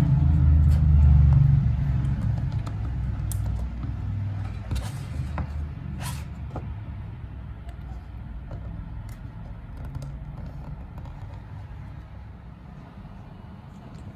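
A low rumble, loudest at the start and fading steadily, under scattered sharp clicks and rustles of paper and card as a boxed iPhone's pull-tab strips are torn off and the box is handled.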